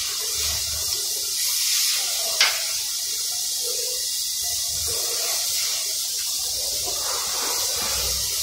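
Steady high-pitched hiss with one sharp click about two and a half seconds in.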